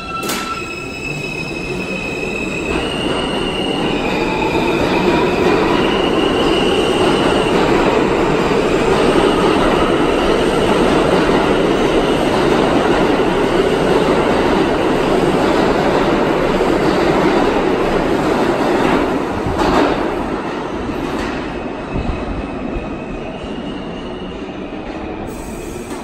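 R160 subway train pulling out of the station. Its propulsion whine climbs in steps of pitch as it accelerates, then a loud steady rumble of wheels and cars passes, with a sharp clank about twenty seconds in, and the sound fades as the last car leaves.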